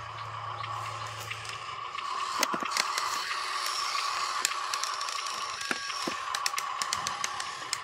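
A loaded RC dump truck driving over a dirt track: a steady whine from its electric drive, with its tyres crackling and crunching over dry twigs, leaves and gravel. A low hum stops about two seconds in.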